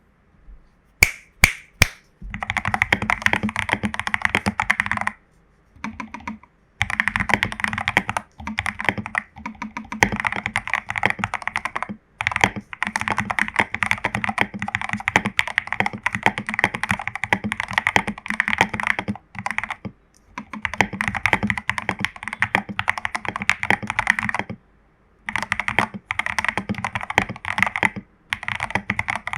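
Royal Kludge RK84 mechanical keyboard with lubed Jelly Strawberry v2 switches, XDA keycaps and foam and tape mods being typed on. A few single keystrokes come about a second in, then fast continuous typing in long runs broken by short pauses.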